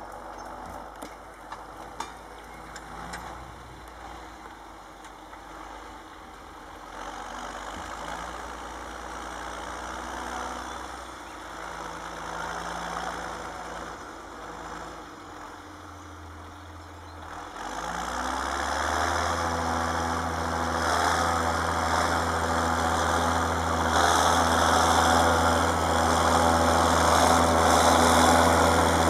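Tractor diesel engine pulling a plough through the soil, growing louder as it approaches; about two-thirds of the way in, the engine becomes loud and steady.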